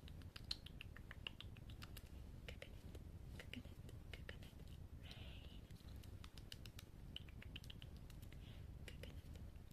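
Close-miked ASMR mouth sounds: many small, irregular clicks and pops of the tongue and lips in the 'coconut rain' style, with a soft breathy puff about five seconds in.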